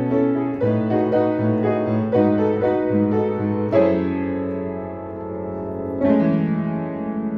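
Piano music: a run of notes, then chords struck about four seconds in and again near six seconds, each left to ring and die away.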